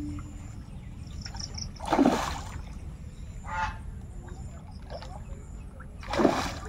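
Water splashing twice, about four seconds apart, as a hooked fish breaks the surface of the pond. A short call sounds between the two splashes, over a steady low rumble.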